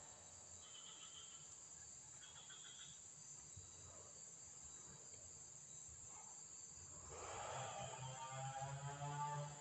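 Faint outdoor ambience with a steady high insect buzz and two brief high chirps about one and two and a half seconds in; background music comes back in over the last couple of seconds.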